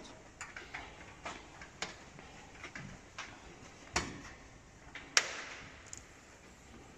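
Light clicks and knocks of folding stainless steel furniture being handled, with two sharper metal knocks about four and five seconds in. The second knock rings briefly.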